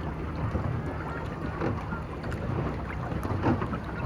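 Small boat under way: a steady low hum with water splashing and lapping against the hull.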